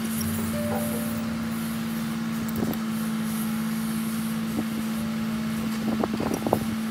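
A steady hum with one strong low tone, broken by a few light clicks and taps, most of them close together near the end.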